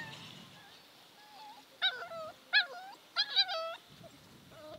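Puppy whimpering and yelping: four short, high cries that fall in pitch, one at a time and then two in quick succession.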